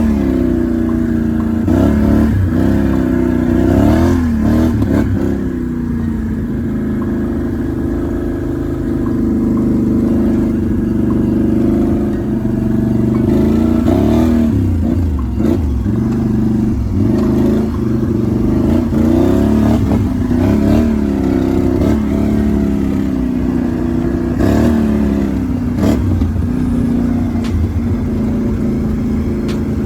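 Can-Am Renegade 1000 XMR ATV's V-twin engine running, with repeated revs whose pitch rises and falls every few seconds.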